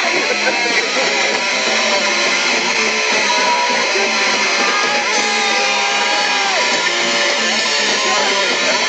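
Live rock band playing electric guitars and drums, loud and steady.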